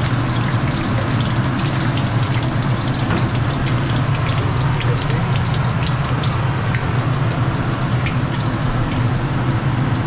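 Chicken pieces frying in hot oil in a wok: a steady sizzle with many small crackles and pops, over a steady low drone.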